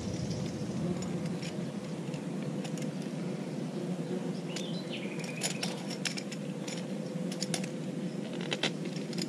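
Small clicks and light rattles of fishing tackle, a float and swivels, being handled while a knot is tied in thick monofilament line, over a steady background hiss. A short high chirp sounds once about halfway through.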